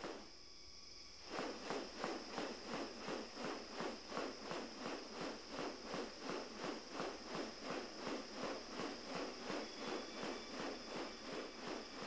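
Male magnificent riflebird in wing display, its raised rounded wings swung to make a regular rustling swish about three times a second, starting about a second in. A steady high insect drone runs underneath.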